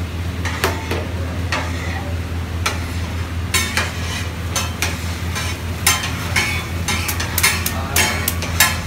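Street-food kitchen clatter: irregular sharp metal clicks and scrapes over a steady low hum, the clicks coming thicker from about halfway through.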